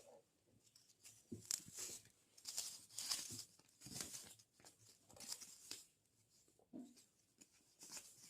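Faint rustling and tearing of packaging being handled, in irregular bursts.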